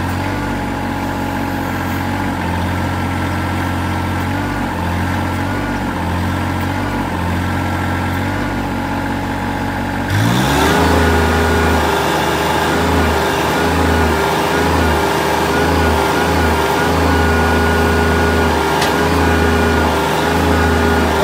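Tractor engine powering a backhoe, running steadily, then revved up about ten seconds in and held at higher speed with a pulsing low note as the backhoe strains on a chain to pull a seized wheel hub off a bus.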